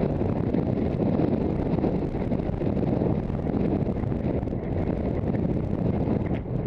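Steady rush of wind buffeting a helmet-mounted camera's microphone while riding a horse at speed, with a brief dip near the end.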